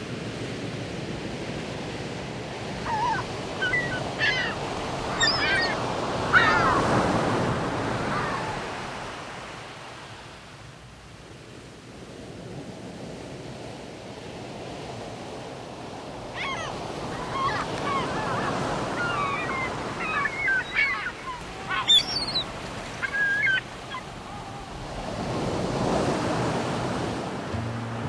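Ocean surf: waves breaking and washing in, swelling and fading slowly. Birds call over the surf a few seconds in and again through the middle.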